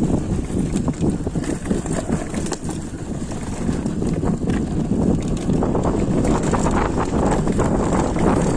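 Wind buffeting the microphone over the rattle of a mountain bike rolling along a rough dirt trail, with many small knocks as the bike goes over bumps.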